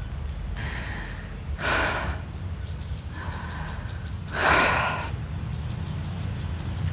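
A distressed man's heavy, gasping breaths: two loud breaths about one and a half and four and a half seconds in, with softer breaths between.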